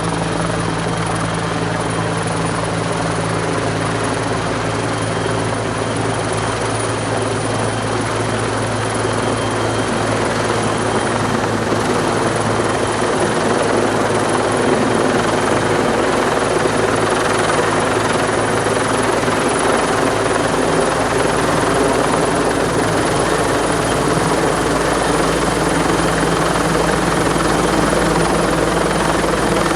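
Helicopter rotor and engine running steadily, its low hum giving way to a louder, rougher rotor noise about halfway through.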